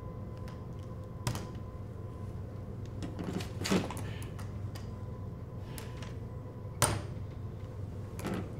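Metal crutches and a booted foot knocking on a stage floor as someone hobbles in: a few separate knocks a second or more apart, the loudest about seven seconds in, over a steady low hum.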